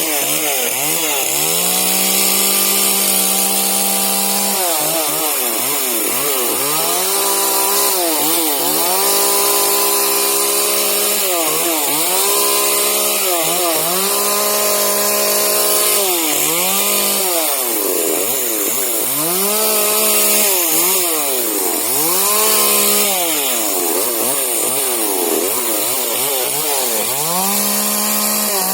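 Husqvarna 125 40cc two-stroke mini chainsaw revving up and dropping back over and over while cutting shrub branches, holding at full speed for a second or two at a time.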